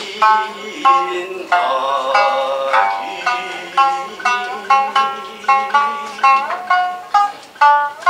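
Shamisen being plucked in a kouta accompaniment, a quick string of separate twangy notes, under a low voice singing long, drawn-out notes.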